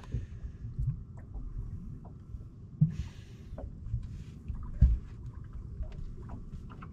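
Movement and handling noises in a small boat: a rustle and two dull thumps, about three and five seconds in, over a steady low rumble of wind and water.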